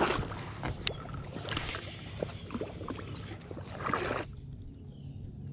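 Water sloshing and splashing around the legs of someone wading through shallow lily-pad water, in several surges with a few sharp clicks, stopping about four seconds in.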